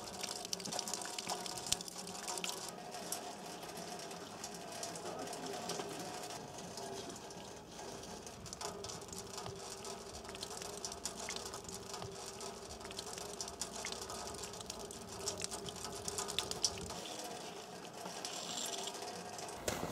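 Small plastic toy diggers scraping and crunching through gravelly soil, in scattered small ticks and crackles, over a faint steady hum.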